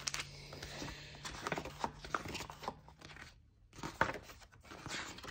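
Paper pages of a colouring book being turned and handled: a run of irregular rustles and soft flicks, with a short lull a little past halfway and a sharper flick about four seconds in.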